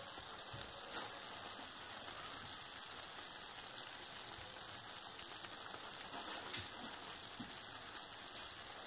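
Chicken drumsticks sizzling gently in oil in a clay tajine, a faint steady crackle, with a couple of soft knocks as vegetables are laid on top.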